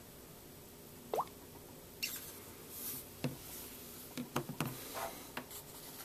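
A short rising touch-sound blip from a Samsung Galaxy Note 3 as the screen is tapped, about a second in. Then handling noise: rustling and several light knocks and clicks as the phone is moved and set down on a table.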